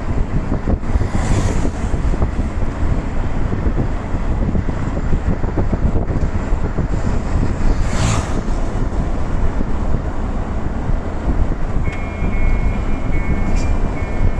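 Steady rumble of road and wind noise from riding along a road, with a motorcycle passing close by about eight seconds in and a briefer pass-by whoosh just after a second in. A faint high whine comes in near the end.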